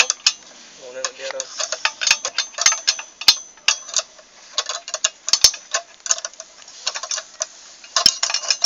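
Irregular metallic clicks and clinks of hand tools working on the fittings of a steel crossarm and its insulators.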